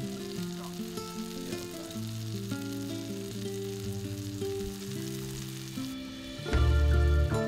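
A fillet sizzling in hot oil in a frying pan on a camping gas stove, under background music of held notes. A loud, deep bass comes into the music about six and a half seconds in.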